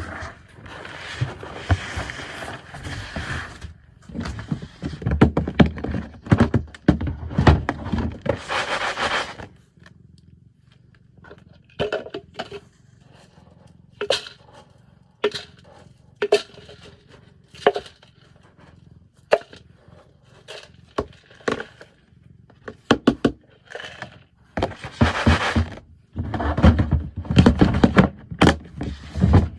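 Cat litter being scooped and sifted: long stretches of gritty scraping and rustling of litter granules, with scattered knocks and clicks in between.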